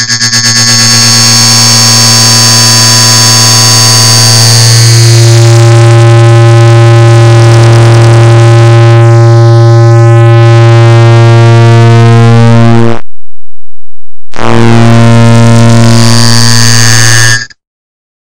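A clock tick sound repeated so fast that the ticks run together into one loud, continuous low buzzing tone with many overtones. It cuts out for about a second and a half after some 13 seconds, comes back, and then stops suddenly shortly before the end.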